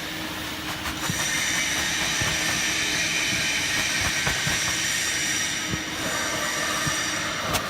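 Automatic wood baling machine running: a steady hiss with a faint low hum and scattered light knocks.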